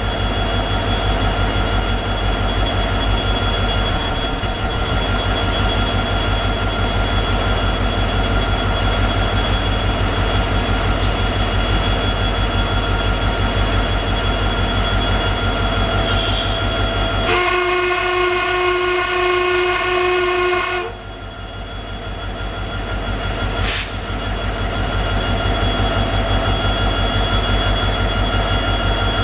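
A WDP4D diesel locomotive's EMD 16-cylinder two-stroke engine running steadily, then, about 17 seconds in, one blast of its horn, a chord of several tones lasting about three and a half seconds, sounded as the start-up honk before the train moves off.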